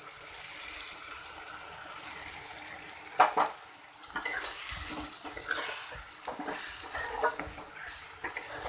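Paneer, potato and flat beans sizzling in oil in a pan while a spatula stirs them. The spatula scrapes and knocks against the pan, sharply once about three seconds in and repeatedly after that.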